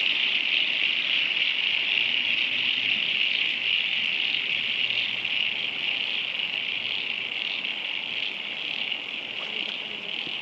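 Chorus of many frogs calling at once, a steady high-pitched din that fades a little near the end.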